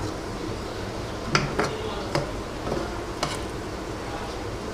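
Metal slotted spatula stirring a tomato-and-egg fish sauté in a frying pan, knocking against the pan with a few sharp clinks over a steady background hiss.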